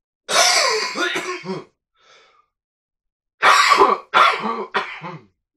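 A man coughing and clearing his throat in two loud bouts, the second broken into several short coughs, from a dry throat.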